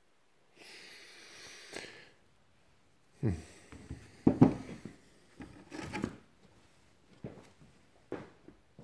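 Rock specimens being handled and set down on a tabletop: a short hissy rustle or breath, then several knocks and clunks of stone on the table, the loudest about four and a half seconds in, followed by lighter taps.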